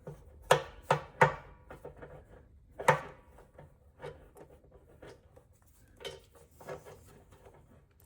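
Scattered clicks and knocks of metal fittings being handled, a few in the first second or so and the sharpest about three seconds in, then fainter taps. They come from a solenoid drain valve being lined up to thread onto an air compressor tank's drain port.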